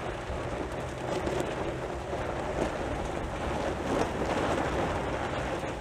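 Diesel engine of a Caterpillar military loader running, a steady noisy sound with a low hum underneath.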